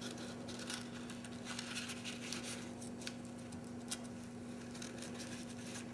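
Faint rustling and small clicks of fingers working cotton string around a paper-wrapped quick match fuse as a clove hitch is slid into place, with one sharper click about four seconds in, over a steady low hum.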